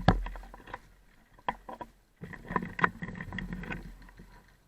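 Irregular clicks, knocks and rustling of a player moving with gear, with the loudest knock right at the start and a busier run of rustling and knocks in the second half.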